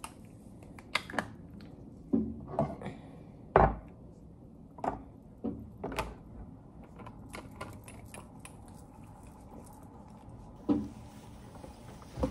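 Plastic baby-bottle parts and a formula container being handled and set down on a countertop during bottle preparation. It comes as a series of irregular clicks and knocks, the loudest about three and a half seconds in.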